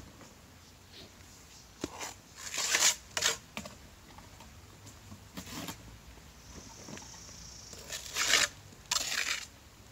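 Steel mason's trowel scraping wet mortar out of a wheelbarrow and spreading it onto concrete block: a series of short rasping scrapes, loudest about three seconds in and again near the end.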